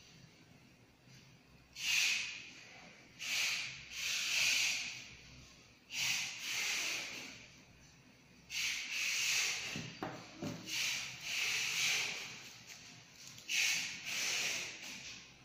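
About ten short scraping strokes, each half a second to a second long, as a fibre-optic stripper scrapes the coating off an optical fibre and the bared fibre is wiped with a tissue, preparing it for cleaving and fusion splicing.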